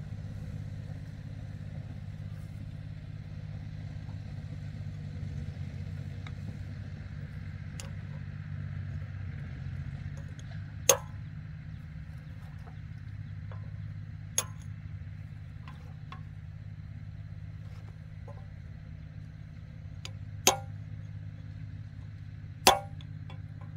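Hammer striking a punch on a steel wheel-hub part: four sharp metallic strikes a few seconds apart, with lighter taps between. A steady low engine hum runs underneath.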